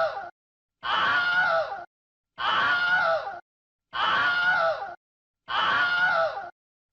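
The same recorded human scream repeated as a sound effect, each scream about a second long and falling in pitch at the end, cut off to silence and starting again about every one and a half seconds: the tail of one and four full screams.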